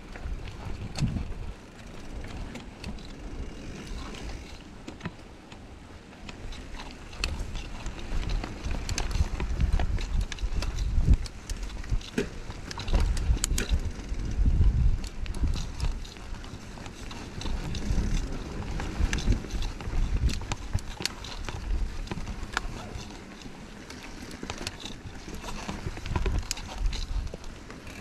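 Mountain bike being ridden along a dirt singletrack trail: a low rumble of tyres over the ground that swells and fades, with frequent clicks and rattles from the bike over roots and bumps.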